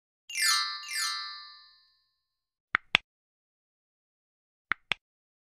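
Subscribe-animation sound effects: two quick falling chime sweeps that ring out briefly, then two pairs of sharp mouse-click sounds as an animated cursor presses the subscribe button and notification bell.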